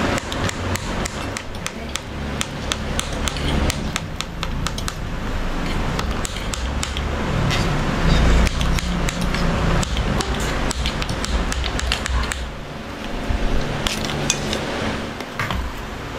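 Spoons and forks clinking and scraping against plates as several people eat, with many quick, sharp clicks throughout.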